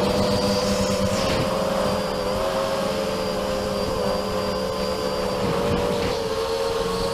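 Multirotor drone's electric motors and propellers whining steadily, several close pitches wavering slightly up and down with changes in throttle, over a rushing hiss, heard from the camera on board.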